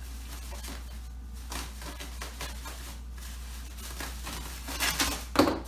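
Scissors cutting through packaging, with light rustling and handling of the wrapping and a few louder snips or knocks near the end, over a steady low hum.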